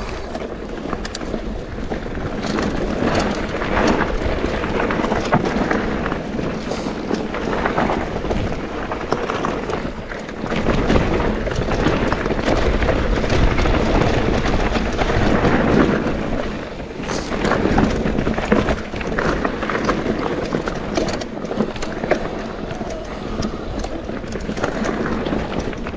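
Mountain bike running down a dirt bike-park trail: continuous tyre noise on the ground, with frequent rattles and knocks from the bike over bumps.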